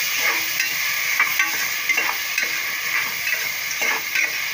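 Chopped tomatoes and onions sizzling in hot oil in a pressure cooker while a utensil stirs them, scraping against the pot every half second or so.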